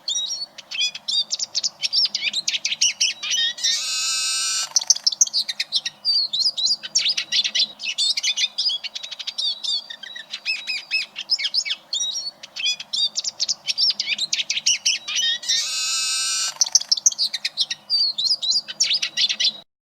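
Eurasian siskin singing: a fast, rambling twitter of chirps and trills, twice broken by a long drawn-out wheezing note. The song cuts off suddenly just before the end.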